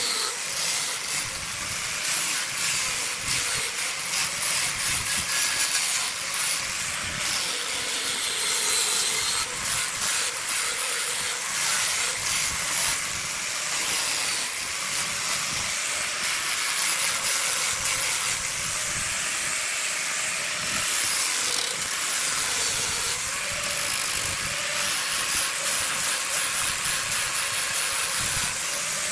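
Angle grinder with a sanding disc sanding a burl wood vase blank as it turns on a lathe: a steady hiss of abrasive on wood over the running grinder motor.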